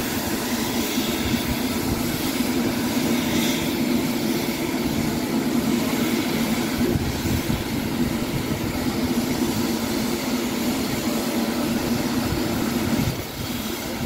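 Andrew Barclay 0-6-0ST saddle-tank steam locomotive moving slowly under steam, a steady low rumble with no distinct beat that eases slightly about 13 seconds in.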